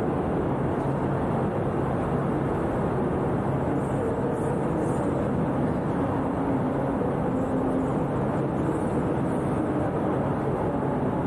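Steady hum of idling vehicle engines over a constant wash of background noise, with no sudden events.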